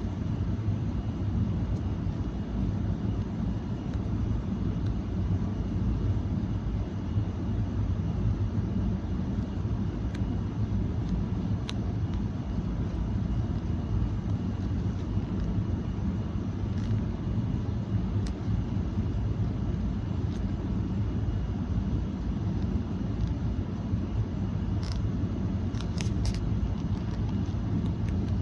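A steady low rumble, with a few faint clicks and several close together near the end.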